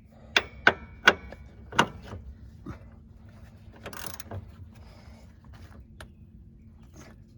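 Hand tools and metal parts clanking during shock-absorber work: four sharp, ringing metal clanks in the first two seconds, then quieter clicks and handling noise.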